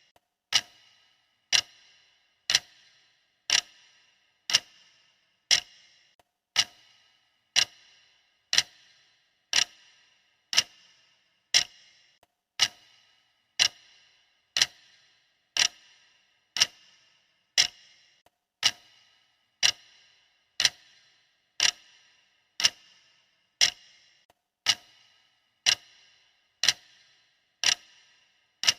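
Clock ticking sound effect of a timer: one sharp tick about every second, each with a short ringing tail, steady and even throughout.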